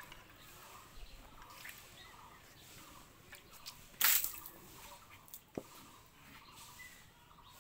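Small splashes and drips of water being handled in an aluminium bowl, with one brief loud splash about four seconds in as the bowl is tipped.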